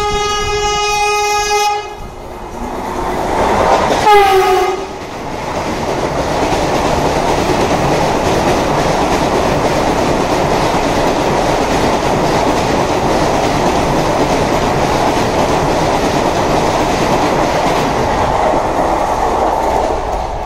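Vande Bharat Express electric multiple unit running through a station at speed. A long horn note ends about two seconds in. A shorter, louder blast about four seconds in drops in pitch as the train reaches and passes. For the rest, the coaches rush past with a steady roar and rattle of wheels on rail.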